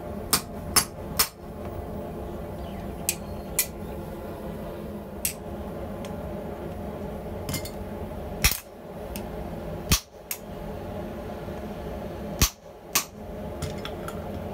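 Hand hammer blows on a hot steel bar lying on a steel anvil block: about a dozen sharp, irregularly spaced metallic strikes, the three loudest in the second half. A steady low hum runs underneath.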